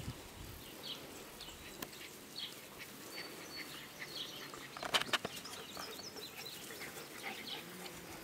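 Small birds chirping in short, scattered calls, with a few sharp clicks about five seconds in.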